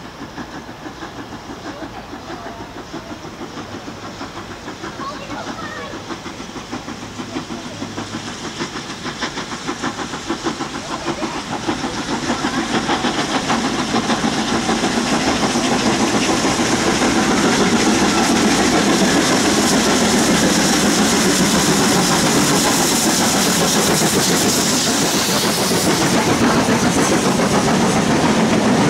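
Two LMS Stanier Black Five 4-6-0 steam locomotives double-heading a train and working hard, their exhaust beating in a quick, even rhythm that grows steadily louder as they approach and pass. Then the coaches roll by loudly.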